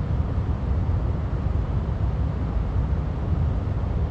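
Steady low rumble of water pouring over a spillway and rushing below it.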